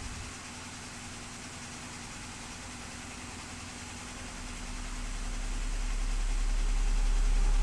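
A low, steady rumbling drone under a faint hiss, swelling steadily louder through the second half.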